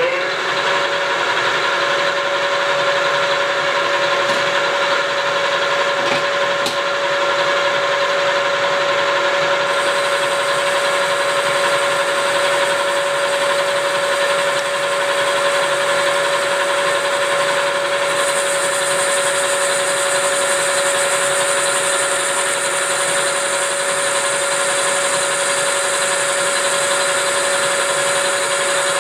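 Metal lathe running steadily at speed on a slow-feed cut, with a steady mid-pitched hum. A higher hiss joins about a third of the way in and grows louder about two-thirds through.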